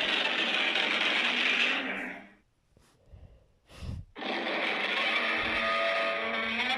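Custom monster roar for the kaiju Gorosaurus: a long, rough, distorted roar that breaks off about two seconds in, then a second long roar starting about four seconds in.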